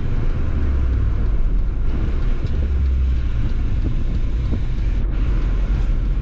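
A Mini Cooper on the move, heard from inside its cabin: steady, loud, low-pitched road and engine noise with a fainter hiss above it.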